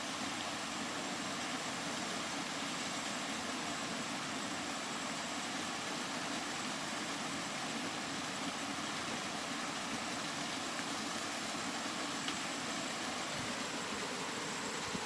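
Continuous rain falling: a steady, even hiss with no breaks.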